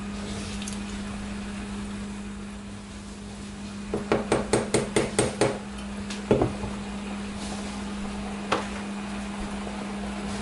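A cooking spatula knocked about eight times in quick succession against a nonstick saucepan, then a glass lid set down on the pot with a louder clack, over a steady low hum.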